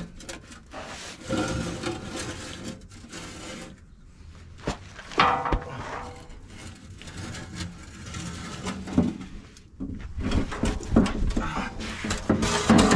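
A Cummins ISX15 oil pan, still holding oil, being worked out from under a truck and across concrete: irregular scraping and rubbing, with a few sharp knocks about five seconds in.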